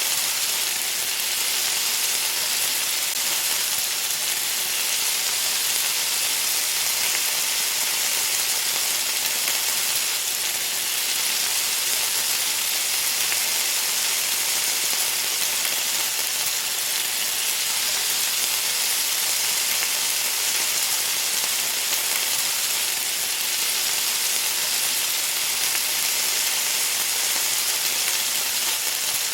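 Food sizzling as it fries, a steady, unbroken hiss.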